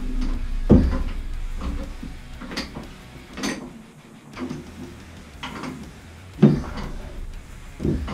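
Irregular clunks and knocks of hand tools and fittings being worked on the boiler's piping, about six sharp ones spread unevenly, with a steady low hum underneath.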